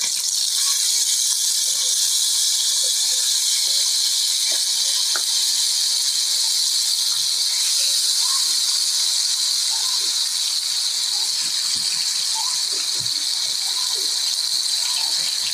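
Chopped fresh tomatoes sizzling in hot oil in a stainless steel pot: a loud, steady hiss as their juice hits the oil.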